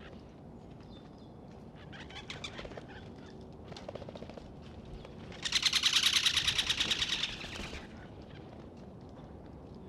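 Great spotted woodpecker drumming on an oak: one loud, very rapid roll of bill strikes on the wood, about two seconds long, starting past the middle and fading out. Fainter short rolls of taps come about two and four seconds in.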